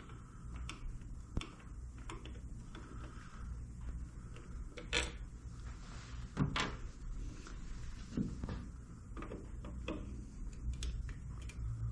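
Scattered light clicks and knocks of plastic parts being handled as old lenses and bulbs are taken out of a motorcycle's front turn-signal housings, over a low steady hum.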